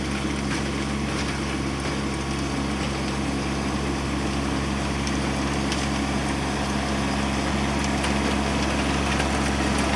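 Kubota B2601 compact tractor's three-cylinder diesel engine running steadily under load while it pulls a rear PTO rototiller through the soil, growing slightly louder near the end.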